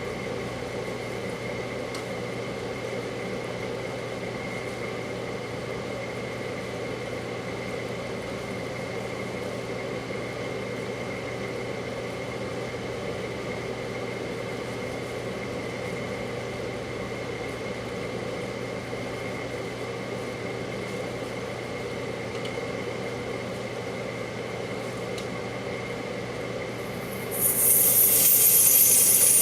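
Microwave oven running with a steady hum, heating a small glass bottle of energy drink. About 27 seconds in, a sudden loud hissing breaks out and carries on.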